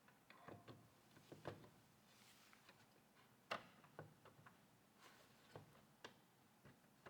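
Faint, irregular small clicks and taps of PC parts and fittings being handled and pressed into place during a computer build, with the loudest click about halfway through.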